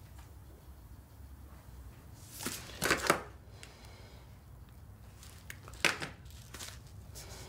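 Faint room tone with a few short rustling, handling sounds from a clipboard, pen and phone, the loudest a cluster about three seconds in and another sharp one near six seconds.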